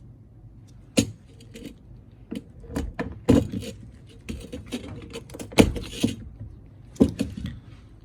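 Sharp knocks and metallic clatter of grinder parts and tools being handled, in uneven bursts, with the loudest knocks about a second in, past halfway and near the end.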